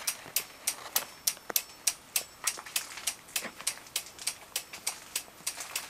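Aftermarket flasher relay clicking steadily, about three ticks a second, as it switches the Yamaha R3's hazard lights on and off: the sign that the hazard flasher circuit is working.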